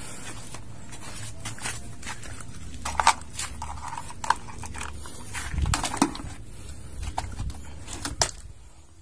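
Small plastic toys being handled and knocked together, giving irregular light clicks and knocks over a low rumble.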